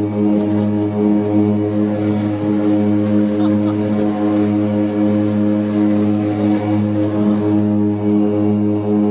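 Seaplane's propeller engine running with a steady drone, heard from inside the cabin while the plane taxis on the water.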